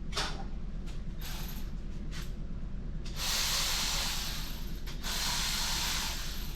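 A few short clicks of metal parts being handled, then two long hissing sprays, about two seconds and a second and a half long, over a steady low hum.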